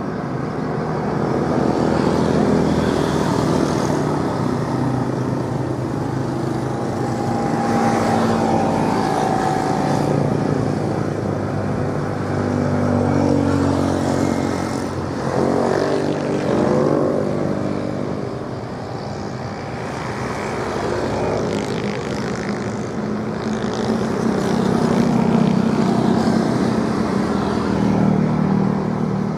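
Engines running steadily, with the pitch rising and falling several times around the middle.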